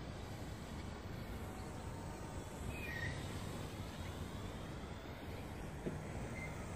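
Steady outdoor background noise with a low rumble, and one short high bird chirp about three seconds in.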